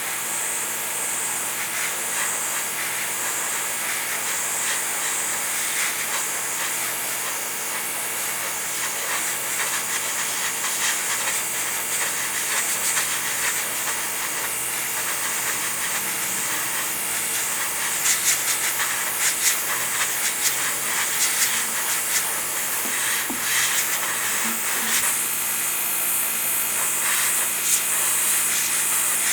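Steady hiss of compressed air spraying, with scattered sharp ticks through the second half.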